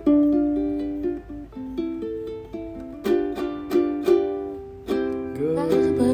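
A plucked string instrument playing a slow tune: notes and chords are struck several times, each ringing out and fading before the next, with a few wavering, bending notes near the end.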